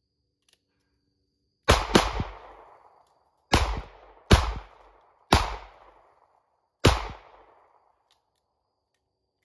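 Six shots from a Colt Cobra .38 Special revolver, fired at an uneven pace, each followed by a short echo; the first two come close together. This empties its six-round cylinder.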